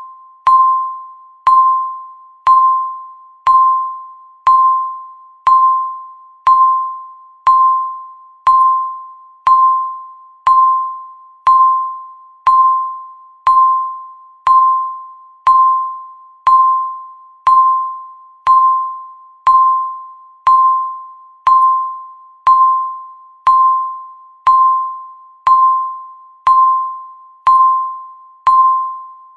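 Countdown timer beeping once a second: each beep is a single bell-like tone with a sharp start that fades away before the next one.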